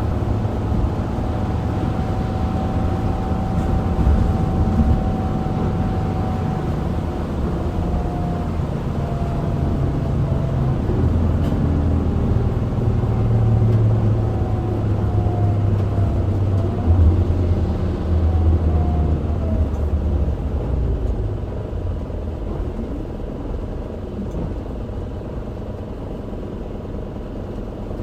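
Isuzu Erga city bus (QDG-LV290N1) running, heard from inside the cabin: a steady diesel engine drone with a faint whine that slides down in pitch, building to its loudest about two-thirds of the way through and then easing to a quieter, steadier running sound near the end.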